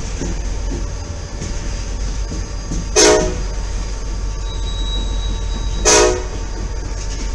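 Freight train rolling slowly past, with a steady low rumble of its wheels on the rails. A locomotive horn sounds two short blasts, about three seconds in and again about three seconds later.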